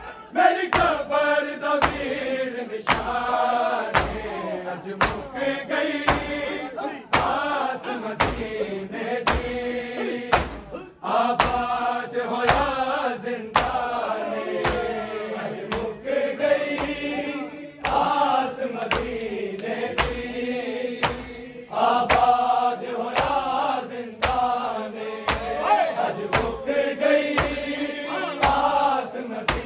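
A group chanting a noha, a Shia mourning lament, in unison, over steady rhythmic chest-beating (matam): sharp slaps about three every two seconds that keep time with the chant.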